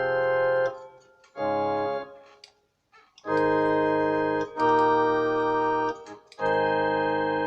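Casio CTK-3500 electronic keyboard playing its reed organ voice: five held chords with short breaks between them. The last chord is sustained and slowly fades.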